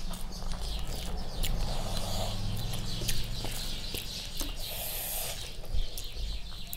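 Close-miked eating sounds: fingers squishing and mixing rice with dal on a paper plate, and wet chewing, a run of small sticky clicks over a low steady hum.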